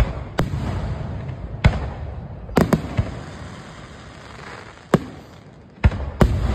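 Aerial firework shells bursting overhead in a finale: about nine sharp booms at irregular intervals, the first the loudest, with a low rumble rolling on between them.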